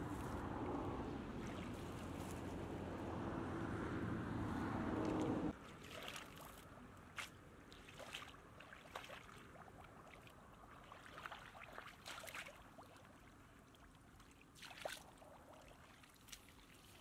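A steady low motor-like drone that cuts off abruptly about five seconds in, then bare feet wading through shallow muddy water, with irregular small splashes and sloshes.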